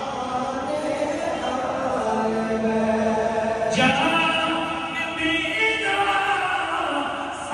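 A congregation chanting together in unison, a melodic religious chant with long held notes; a new phrase starts about four seconds in.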